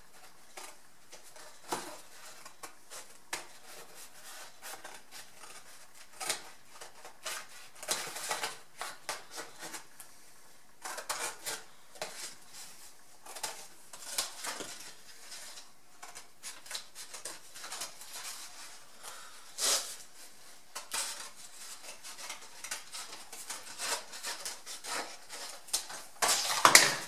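Cardboard being cut out by hand into a stencil: a long run of irregular crisp snips and rustles, with a sharper click about two-thirds of the way through and louder handling noise near the end.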